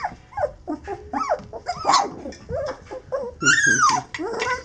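Golden retriever puppies making a string of short, high-pitched cries as they play together. A longer, louder cry rises and falls about three and a half seconds in.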